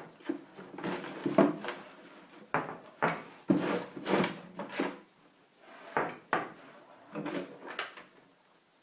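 Heavy steel lathe tooling and parts being rummaged through and set down in a box: a string of separate clanks and knocks, some ringing briefly.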